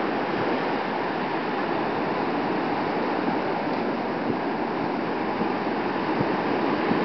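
Ocean surf breaking and washing around the shallows, a steady rush of waves.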